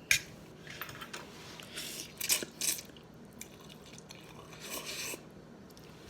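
Close-up eating of spicy cheese ramen with ground pork: wet noodle slurps and chewing in short bursts, with a sharp click near the start. The loudest slurps come twice, a little past halfway.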